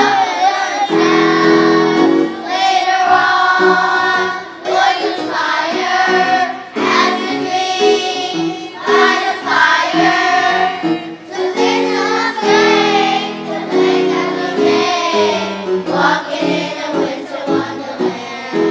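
Children's choir singing a song in unison over an accompaniment of steady held chords.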